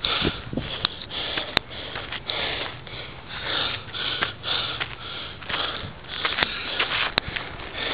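A person panting hard and fast from the effort of climbing a steep trail, with breaths about twice a second close to the microphone, and a few sharp clicks.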